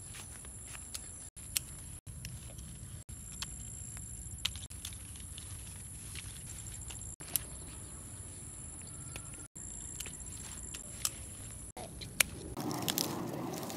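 Small scissors snipping roselle calyxes from their stems: a few sharp clicks several seconds apart over a steady low rumble and a steady high-pitched whine. Near the end a louder rustling of leaves and handling sets in.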